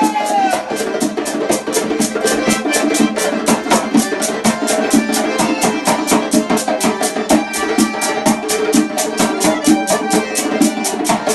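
Loud Caucasian dance music on garmon (accordion) and drum, with a fast, even drum beat of about five strokes a second.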